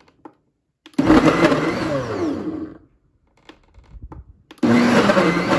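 Ninja Foodi Hot & Cold Blender pulsed twice, each pulse about two seconds of motor and blade noise starting abruptly, the second about four and a half seconds in: the blades chopping frozen strawberries into a thick cream-and-milk ice cream base.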